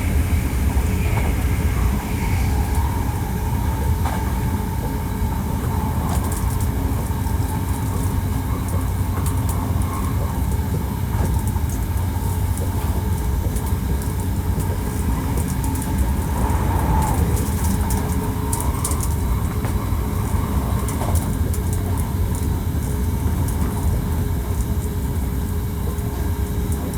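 Hankyu 1300 series electric train running along the line: a steady low rumble of wheels on rail, with a wavering motor whine from its Toyo IGBT inverter drive, a unit with an odd-sounding motor noise.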